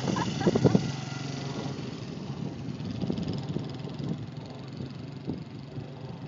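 Small dirt bike engine running as the bike rides past and away. It is loudest in the first second, then settles lower and fades with distance.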